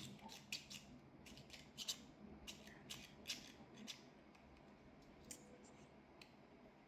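Faint clicks and scraping of a 3D-printed plastic slider fidget toy being worked back and forth by hand, bunched in the first four seconds, then only a few scattered clicks.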